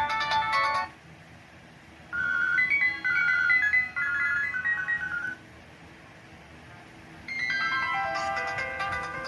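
Nokia 215 mobile phone ringtones playing one after another as short electronic melodies. One ends under a second in, a brief tune plays from about two to five seconds, and after a short pause another begins about seven seconds in.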